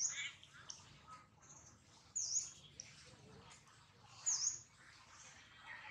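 A bird repeating a short, high, dipping chirp about every two seconds, three times, with fainter lower calls between.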